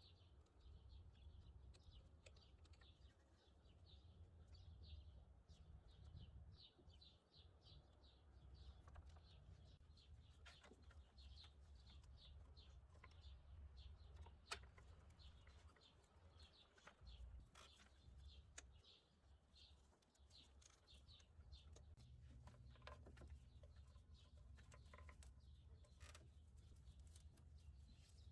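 Near silence: faint birds chirping in quick series in the background over a low steady rumble, with an occasional faint click.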